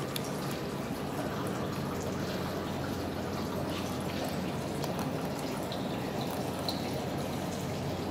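Steady running-water hiss, with a few faint small clicks over it.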